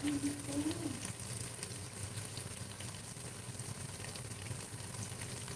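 Chicken wings cooking in a pan for adobo, a steady sizzle and bubbling with faint crackles.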